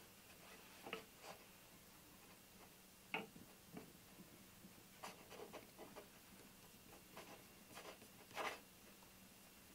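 Faint, intermittent rubbing of a fingertip spreading glue over the face of a wooden mold half, a series of short strokes.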